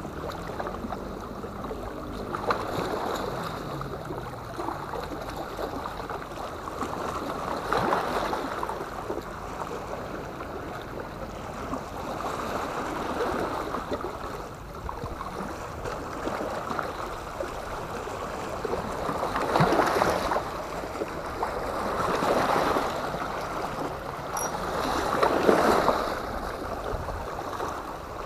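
Sea water washing and lapping against the boulders of a rock breakwater, swelling up every few seconds as small waves come in.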